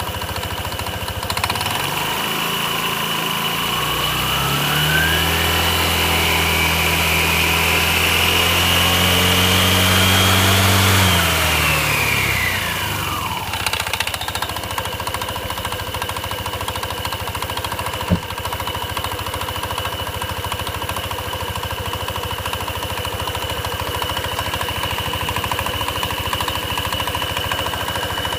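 Honda FES 125 scooter engine running with its belt-drive cover off, the pulleys spinning in the open. It revs up with a rising whine, holds, then falls back to a steady idle about 12 seconds in, with one sharp click about 18 seconds in. The owner is unhappy with how it runs even after a new drive belt and variator rollers.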